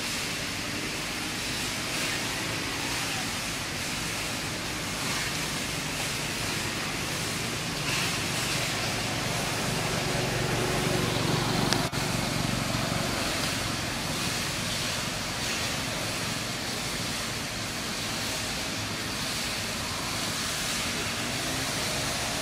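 Motorbikes and scooters running along a road, a steady engine and tyre noise over a constant outdoor hiss. It swells louder about halfway through, with a single sharp click at the loudest point.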